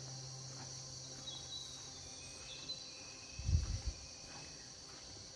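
Steady high-pitched drone of insects, with a few faint bird chirps and a brief low thump about three and a half seconds in.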